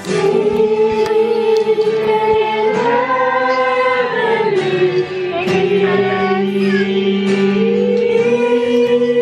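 Several voices singing together in a slow song with long held notes.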